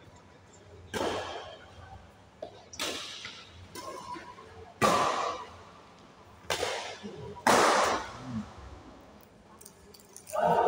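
Badminton rackets striking a shuttlecock in a doubles rally: about six sharp hits, roughly one to two seconds apart, echoing in a large hall. The hits stop partway through as the rally ends.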